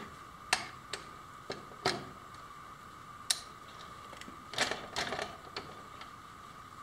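Irregular sharp metal clicks and taps from a hand tool working on the metal parts of a band saw being dismantled, with a short cluster of clicks around five seconds in. A faint steady high hum runs underneath.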